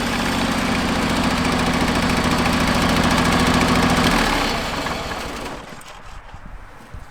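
John Deere garden tractor engine running steadily. About four seconds in, its note drops and the sound fades away over the next couple of seconds.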